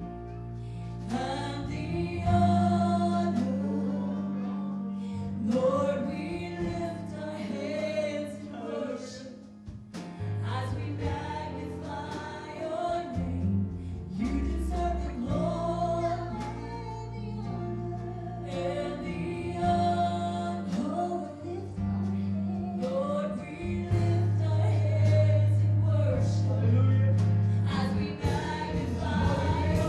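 Live gospel worship music: voices singing over a band, with long held bass notes underneath.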